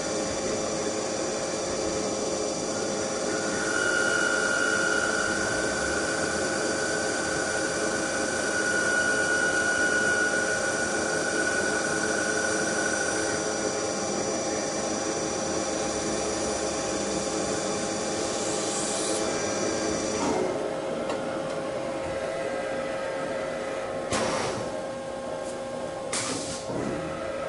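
A machine tool running a cut: a steady motor and spindle whine, with a clear higher-pitched cutting tone for several seconds in the first half. About two thirds of the way through, the hissing part of the sound drops away, and a couple of sharp knocks follow near the end.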